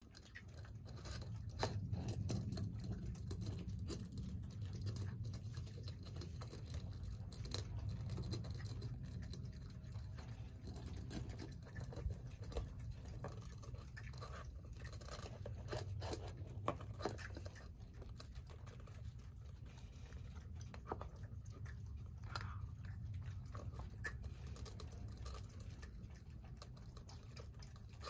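A raccoon's paws working a whole duck egg on concrete pavers: irregular light clicks and taps of shell and claws against the stone, over a low steady rumble.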